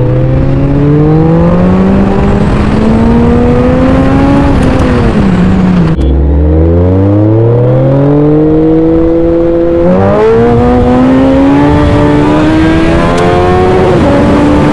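Suzuki Hayabusa's inline-four engine, fitted with a K&N air filter, accelerating hard: the pitch climbs, eases off about four seconds in, climbs again from about six seconds with a brief dip at about ten, and falls away near the end.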